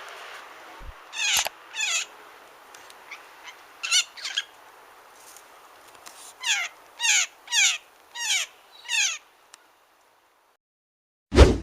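A bird giving a series of short calls, each sliding down in pitch, singly and then in a quicker run of five about six seconds in, over a steady hiss. The recording cuts off about ten and a half seconds in, and a loud burst of another sound starts near the end.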